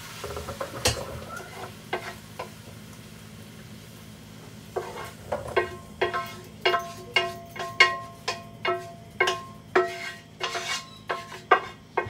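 A metal spoon scraping and knocking against a pan and bowl as cooked onions, carrots and potatoes are spooned out of the pan. From about five seconds in come sharp ringing clinks, roughly two a second.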